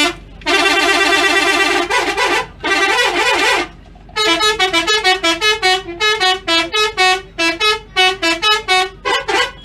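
Telolet horn on a bus playing a tune: long held chords and a warbling tone, a short pause, then a quick run of short alternating notes, several a second.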